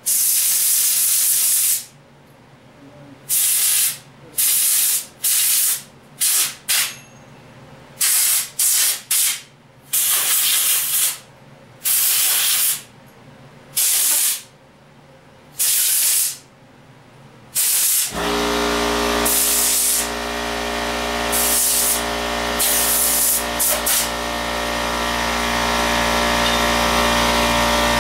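Pressurized spray hissing in about fifteen short bursts, like a blow gun or aerosol cleaner being worked over valve parts. About two-thirds of the way through, a steady motor hum starts and keeps running, with a few more spray bursts over it.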